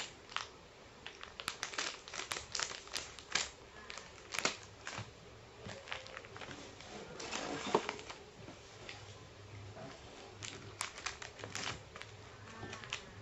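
Plastic snack wrappers crinkling and crackling as they are handled, in many short irregular clicks. Near the end comes a quicker run of clicks as scissors cut open a wafer packet.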